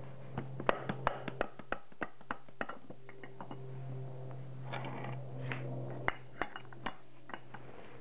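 Hammer tapping on an Audi A8 D3 front air strut and its aluminium mount to drive the shock out: a quick run of sharp metallic knocks, about three a second, then a few scattered ones.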